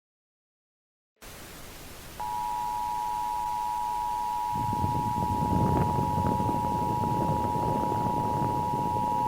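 Emergency broadcast attention signal: a steady two-tone alarm comes in about two seconds in over static hiss that cut in abruptly out of dead silence. A louder rumbling crackle of static joins about halfway through.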